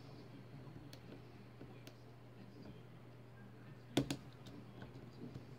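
Faint ticks and clicks of a hook pick working the pins inside a Winkhaus euro cylinder lock, with a sharper double click about four seconds in. A steady low hum runs underneath.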